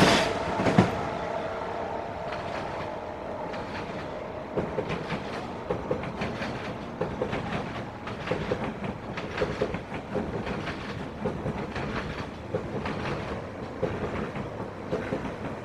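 Electric train running on the tracks below and moving away. A loud steady hum with a whine fades over the first couple of seconds, followed by a run of light clicks over quieter rail noise.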